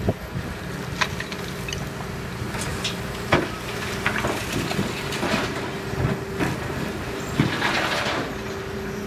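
Hitachi Zaxis 225 USLC excavator's diesel engine running steadily while the bucket scoops and dumps demolition rubble into a steel dump-truck bed: a string of sharp knocks and clatters of broken brick and concrete, with a longer rush of falling rubble near the end.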